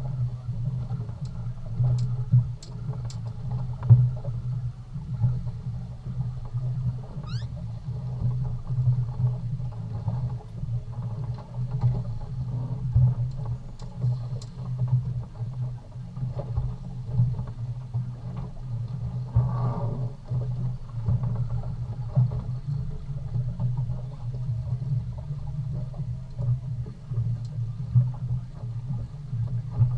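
Fishing boat's engine running steadily as a continuous low hum, with a few faint clicks and a brief rising squeak about seven seconds in.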